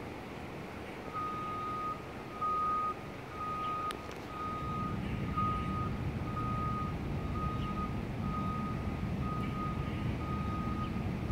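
A vehicle's reversing alarm beeping about once a second on one steady tone. A low engine rumble joins it about halfway through.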